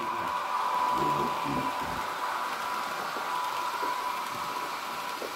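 H0-scale model train, a Rh 1044 electric locomotive hauling coaches, running along the track: a steady, even whine over a constant rushing hiss.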